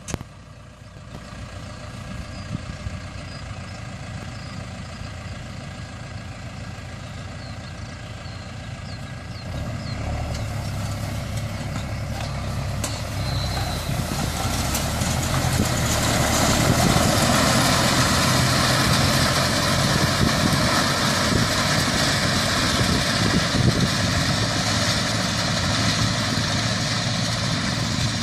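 Engine running steadily, with a rushing noise that grows much louder from about ten seconds in.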